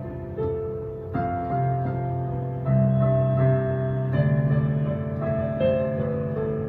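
Electronic keyboard playing a slow melody over sustained chords, the notes changing every second or so.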